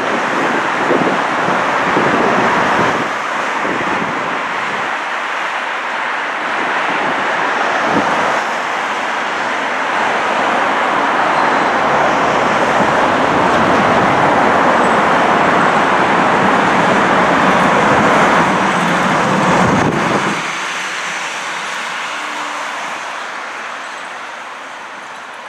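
Steady multi-lane freeway traffic: a continuous rush of car tyres and engines passing below, swelling as vehicles go by and dropping noticeably about 20 seconds in.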